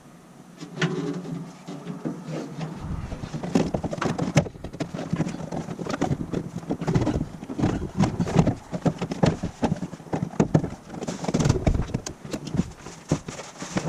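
Irregular clicking, knocking and rattling of truck-door latch parts and panel being handled and worked by hand, starting about a second in.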